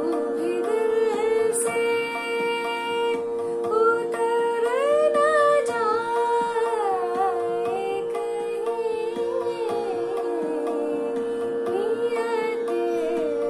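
A woman singing a ghazal in a slow melody that slides and ornaments between notes, over a steady drone accompaniment.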